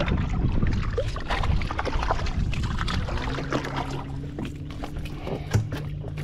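Fishing boat's motor running steadily, with scattered short knocks and clatter over it.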